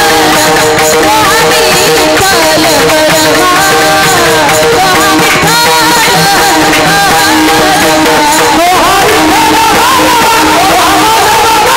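Marathi kirtan music: devotional singing over steady held instrumental tones with rhythmic percussion, loud and unbroken.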